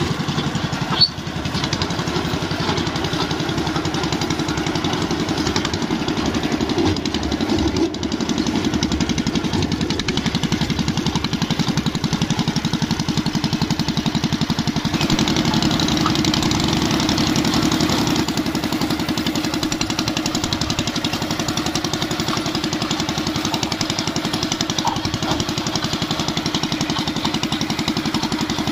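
Engine of a Grabagan rice harvester-thresher running steadily with a fast, even pulse, with one sharp knock about a second in.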